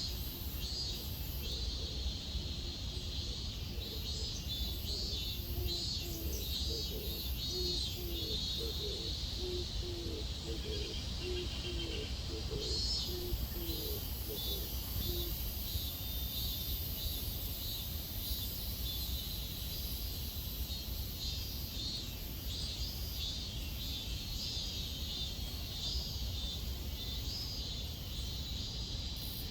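Cicadas calling outdoors in a steady pulsing series, about two pulses a second, over a very high insect trill and a low wind rumble; for a while a run of short low chirps sounds along with them.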